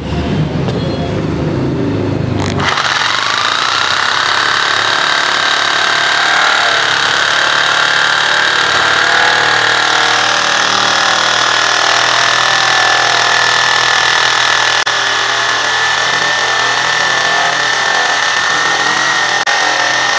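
Ossel P431 corded jigsaw cutting through a 1.5-inch-thick board of medium-hard wood. After a low rumble at first, its motor whine rises about two and a half seconds in, then holds steady at full speed through the cut.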